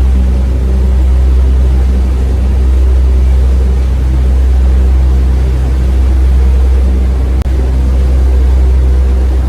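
Sightseeing boat's engine running steadily with a deep, constant hum.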